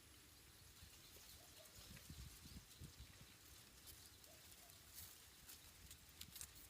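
Near silence: a faint low rumble with a few soft scattered ticks.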